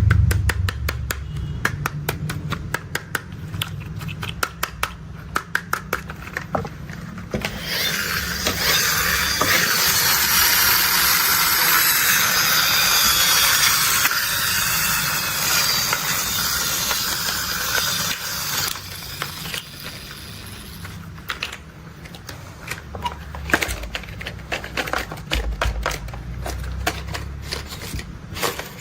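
Toy construction vehicles being played with: rapid trains of small clicks and plastic rattles, with a gritty rushing noise of about ten seconds in the middle, over a low rumble.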